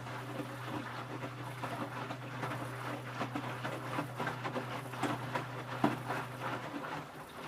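Electrolux W455H commercial washing machine on its wash cycle: a steady motor hum under irregular sloshing and splashing of water and laundry as the drum tumbles. The motor hum cuts out near the end.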